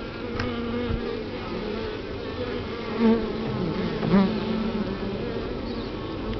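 A honeybee colony humming steadily, heard from inside the top-bar hive. Single bees buzz close past the microphone, louder about three and four seconds in, their pitch bending as they pass.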